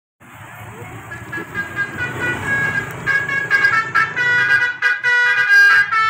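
The telolet horn of an odong-odong mini train playing a quick tune of changing notes, getting louder as it approaches. A low engine rumble runs under it in the first half.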